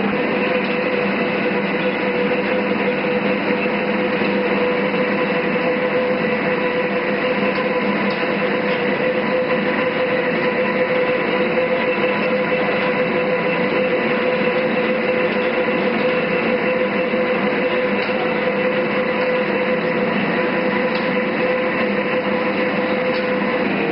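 All-geared lathe running steadily, its gearbox giving a constant hum with a steady whine on top.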